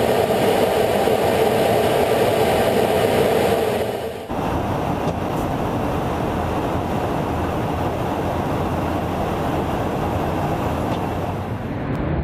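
Steady jet aircraft noise heard from inside an aircraft in flight, a loud rushing roar. About four seconds in it cuts abruptly to a broader, slightly quieter rushing roar.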